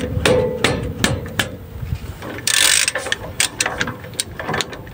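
Socket ratchet on an extension bar clicking irregularly as a front brake caliper bolt is loosened, with a short rasping burst about halfway through.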